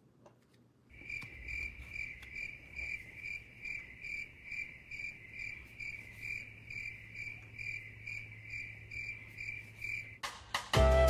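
Cricket chirping sound effect: a steady, evenly pulsing chirp repeating a little more than twice a second, which starts abruptly about a second in. It is the stock 'crickets' gag for an awkward silence. Music cuts in near the end.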